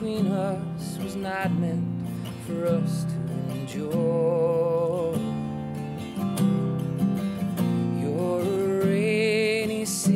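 Acoustic guitar strummed under a man singing a slow song, holding long notes with a wavering vibrato about four seconds in and again near the end.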